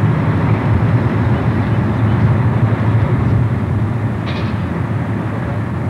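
Steady low rumble of distant road traffic from the freeway below, heard as a continuous wash without distinct passing vehicles.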